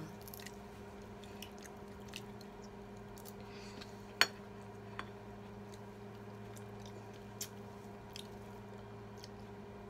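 Quiet eating at a table: faint chewing and a few sharp clicks of a spoon or fork on a plate, the loudest about four seconds in, over a steady background hum.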